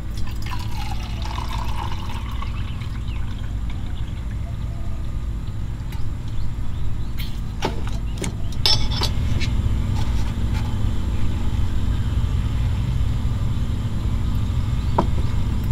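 Liquid poured from a steel pot at the start, its pitch dipping and then rising, then a cluster of sharp metal clinks from a kettle and pot being handled about halfway through. A steady low rumble runs underneath.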